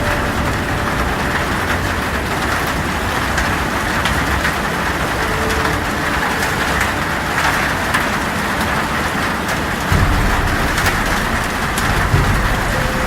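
Heavy rain on a metal tin roof: a steady dense patter with many separate drop ticks, with low rumbles about ten and twelve seconds in.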